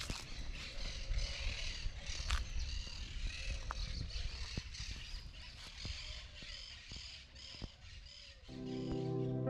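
Birds calling again and again over rural outdoor ambience, with a low wind rumble on the microphone and a few sharp clicks. About eight and a half seconds in, sustained keyboard chords of background music come in.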